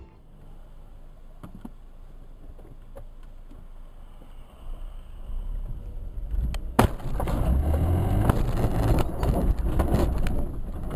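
Car driving, heard from inside: a low road rumble, quiet at first and growing louder after about four seconds. A sharp click comes near the middle, then a louder rumble with small knocks and rattles.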